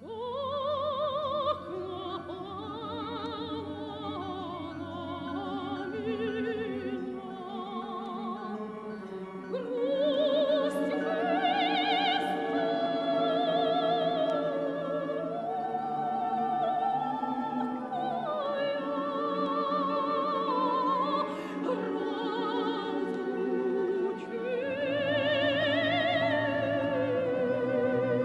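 Background music: operatic singing with a wide vibrato, holding and gliding between long notes over a classical instrumental accompaniment.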